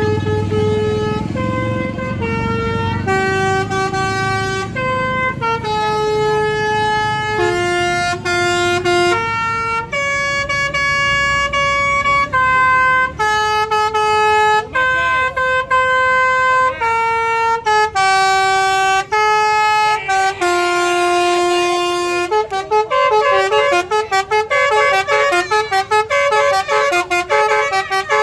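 Basuri multi-tone 'telolet' bus horns playing a melody of held notes, one pitch after another, with a bus engine rumbling underneath for the first half. About two-thirds of the way in, the tune turns into a fast run of notes switching rapidly back and forth.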